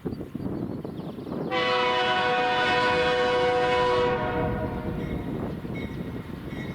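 Freight locomotive air horn sounding one long chord of several notes for about two and a half seconds, starting about a second and a half in, over the low rumble of the train.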